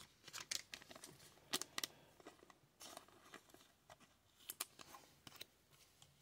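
Faint, scattered clicks and rustles of chrome refractor trading cards being shuffled and slid against each other by hand, with a light crinkle of pack wrappers near the end.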